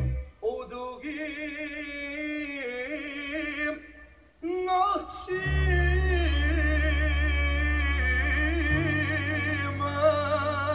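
A vinyl LP playing on a record player: a Bosnian folk-pop song with a male singer's strongly wavering, ornamented vocal over the band. The music dips briefly about four seconds in, then returns with a deep bass line that changes note a few seconds later.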